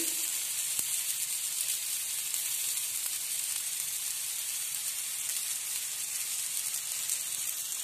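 Oil sizzling around a gram-flour tomato omelette frying on a flat griddle, a steady high hiss.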